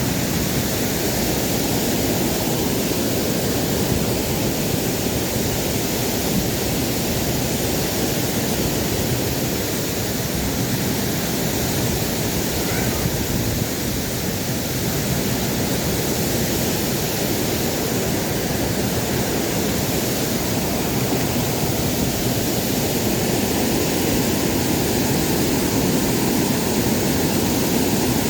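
Steady rushing of a waterfall, an even unbroken roar of falling water.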